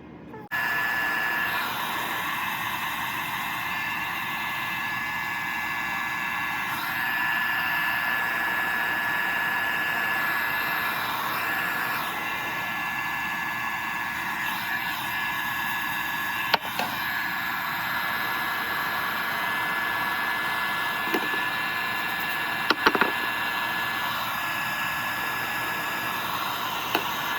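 Handheld hair dryer running: a steady rush of air with a thin high whine, switched on about half a second in. A few light knocks come through it.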